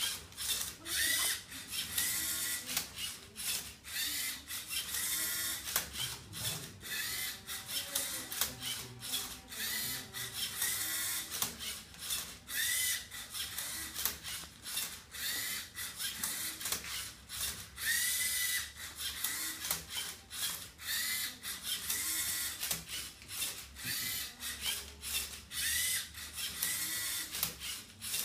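LEGO Mindstorms EV3 MindCuber solving a Rubik's Cube: its two large and one medium EV3 motors whine in short runs that speed up and slow down, as the flipper arm tips the cube and the turntable turns it. Plastic parts clack and the gears rattle between the runs.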